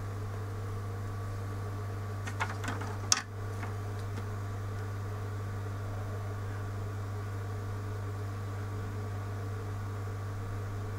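Steady low electrical hum, with a few light clicks about two to three seconds in, the last one sharp.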